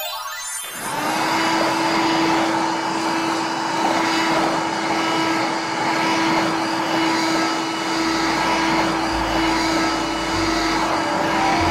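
Toy vacuum cleaner switched on: its motor spins up about half a second in, then runs with a steady whirring hum.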